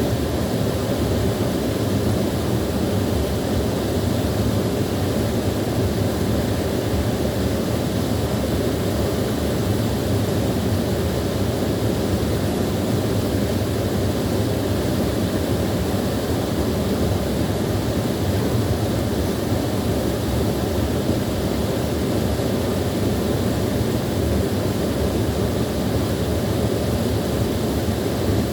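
Small waterfall running steadily: a constant rush of falling water, heaviest in its low rumble and unchanging throughout.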